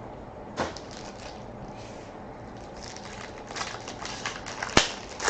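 A sealed trading-card box and its wrapper being opened by hand: scattered crinkling and small clicks, busier in the second half, with one sharp click near the end.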